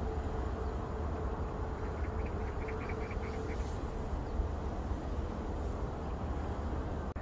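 Steady low rumbling outdoor noise, with a short run of faint high chirps from birds about two to three and a half seconds in.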